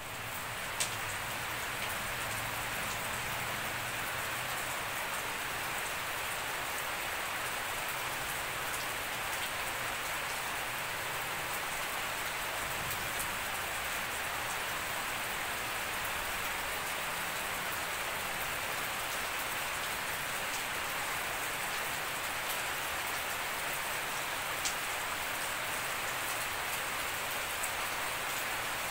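Steady rain falling on a lawn, puddles and leaves: a dense, even hiss with now and then a sharp tick of a drop landing close by.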